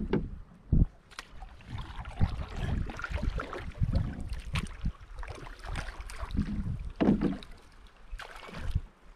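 Water slapping and sloshing against the hull of a small outrigger canoe in irregular splashes, with wind gusting on the microphone.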